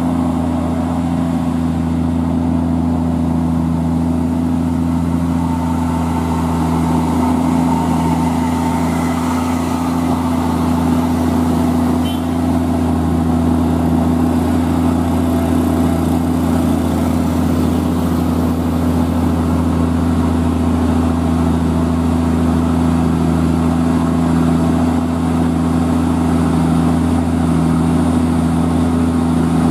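Heavily loaded Scania P380 truck's diesel engine pulling slowly up a climb at a steady, unchanging engine speed, likely held in a low gear from the bottom of the hill. A single short click comes about twelve seconds in.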